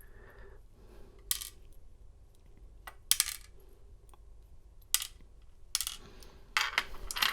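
Sharp metallic clinks, about five spread over a few seconds, the last ones coming closer together: small metal deadbolt parts and tools being handled and set down on a hard surface while the pins are taken out for measuring.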